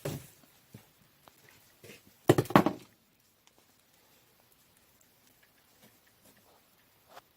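A short cluster of knocks and rustling a little over two seconds in, then near quiet with a few faint clicks.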